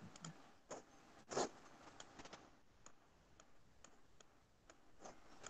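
Faint, scattered clicks of someone working a computer, the loudest about a second and a half in, with a few softer ticks after.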